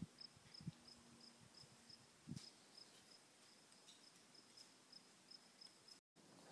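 Faint cricket chirping, a high pulse repeating evenly about three times a second, with a few soft low thuds in the first couple of seconds. Near the end it cuts off abruptly.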